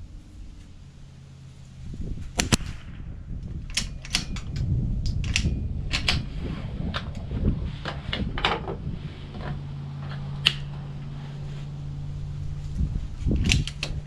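Gunfire at a shooting range: sharp shots, several in quick succession from about two seconds in, then single shots a little after ten seconds and near the end.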